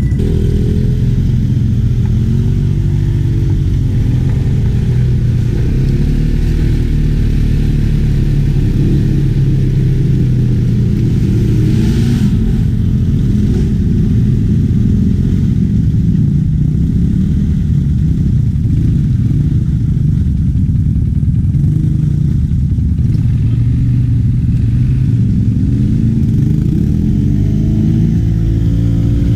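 ATV engine running on the trail, its pitch rising and falling with the throttle. A short burst of noise comes about twelve seconds in.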